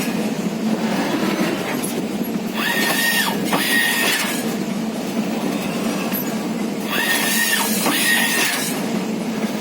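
Pitch stitching machine for hybrid grass running with a steady mechanical hum, broken by pairs of short high whines that rise, hold and drop, repeating about every four seconds with the machine's working cycle.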